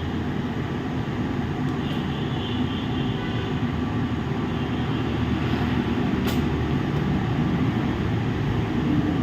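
Steady low rumble of background machinery noise, with a single faint click about six seconds in.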